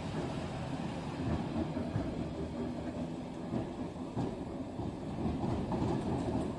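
Steady low rumble of an H0m metre-gauge model tram running on the layout, its small motor and wheels going over handbuilt track.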